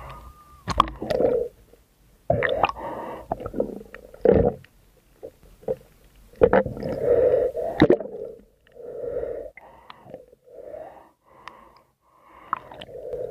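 A swimmer's breathing, heard muffled through the underwater camera: a run of separate in-and-out breaths, each about half a second to a second long, with a few sharp clicks among them.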